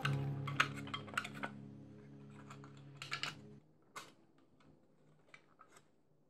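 Light clicks and taps of fingers handling a small model boat made of soda-can aluminium while fitting its 9-volt battery and wires. Background music runs under the first few seconds and cuts off about three and a half seconds in.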